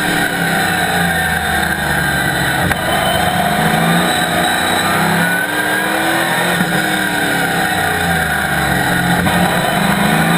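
Chevrolet ZZ4 small-block V8 of a Camaro Cup race car, heard from inside the stripped cockpit under racing load, its pitch rising and falling several times as the driver accelerates and lifts through the corners.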